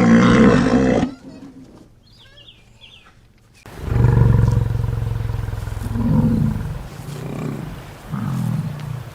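Animal calls: a loud pitched call in the first second, then from about four seconds in a large animal's deep, drawn-out call followed by shorter low, rumbling calls.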